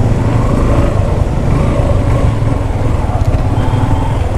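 Yamaha FZ V3 single-cylinder motorcycle running steadily on the move, with heavy wind rumble on the rider's helmet microphone.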